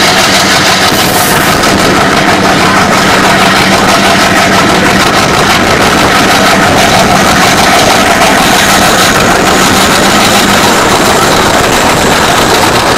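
Diesel-hauled train, most likely behind an Alco WDM3A locomotive, rolling slowly out past a platform as heard from an open coach door. A steady low engine drone sits under loud rushing running noise, and a faint high whine rises slowly from about eight seconds in.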